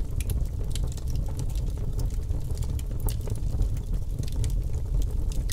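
Title-card sound effect: a steady low rumble with scattered crackles and clicks throughout.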